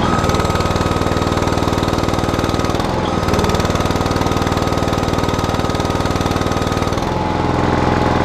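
Terramite backhoe engine running with its hydraulics under load, and a steady high-pitched squeal from the hydraulic system. The squeal starts, drops out briefly about three seconds in, comes back and stops near the end, with the engine note changing as it starts and stops. The owner is unsure whether the squeal is the relief valve opening at about 2400 psi.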